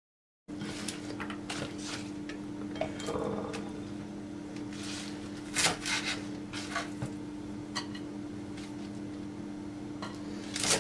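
Kitchen knife chopping arugula on a wooden cutting board: irregular single knife strokes knocking on the board, one of the loudest about halfway through. A steady low hum lies underneath, and the sound begins after a brief silence at the start.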